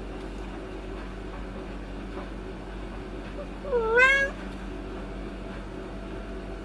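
A calico cat meows once about halfway through: a short call that dips in pitch and then rises.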